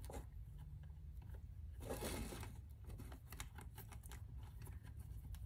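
Faint clicks and light scraping of a small Allen key turning a short bolt into a plastic corner piece on an acrylic enclosure, with a brief rustle about two seconds in.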